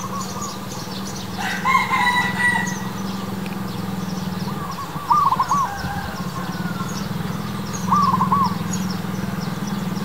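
A rooster crows once in the background about one and a half seconds in. Shorter looping bird calls follow twice, near the middle and near the end, over small high chirps and a steady low hum.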